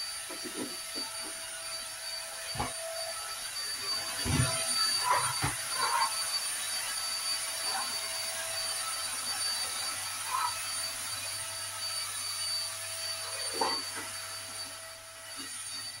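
Stick vacuum cleaner running with a steady high whine, with several knocks and bumps as it is moved about. The sound fades down near the end.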